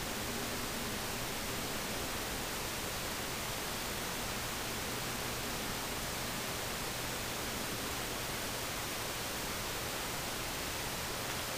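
Steady, even hiss of background noise with a faint low hum, unchanging throughout and with no distinct events.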